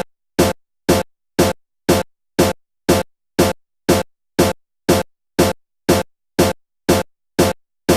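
Background electronic music: a short chopped beat that repeats evenly about twice a second, with silence between the hits.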